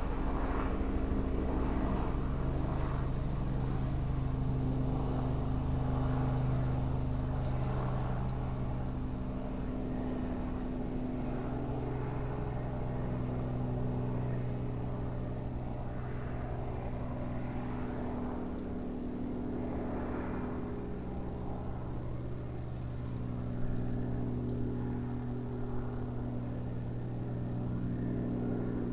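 Airplane flying past, a steady low engine drone.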